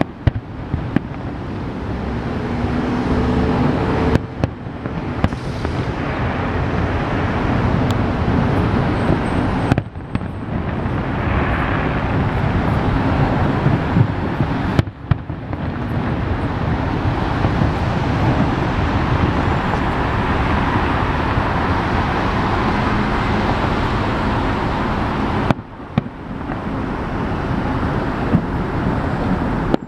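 Steady city traffic noise, with a few sharp bangs of fireworks bursting in the distance.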